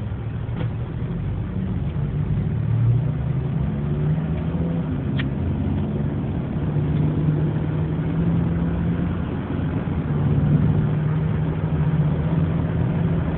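Car engine and road noise heard from inside the cabin while driving: a steady low hum whose pitch shifts slightly.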